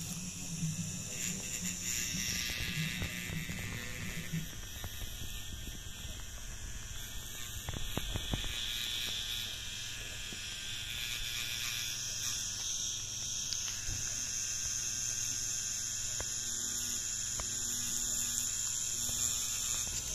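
Electric tattoo machine buzzing steadily as the needle works ink into skin.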